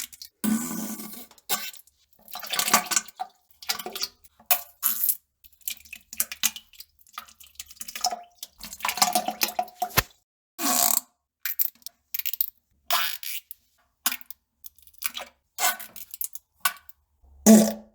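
A long run of short, wet poop and fart sounds, about twenty in all with brief silent gaps between them: spluttering bursts and plops like droppings falling into toilet water, with one sharp click about ten seconds in.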